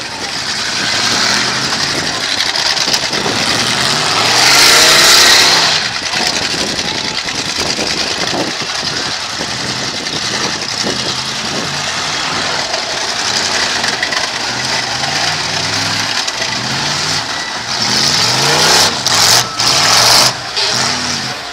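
Demolition derby cars' engines revving, their pitch rising and falling, with a crowd of spectators cheering over them. The cheering is louder twice: about four seconds in and near the end.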